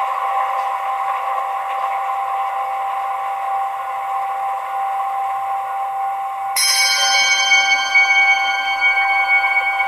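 Generated ambient music: a steady drone with one held tone, then a bell struck once about two-thirds of the way in, its many high overtones ringing on.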